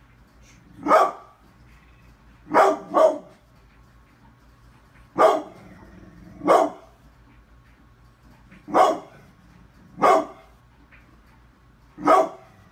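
Pit bull barking: eight deep, single barks spaced a second or two apart, two of them in quick succession about three seconds in.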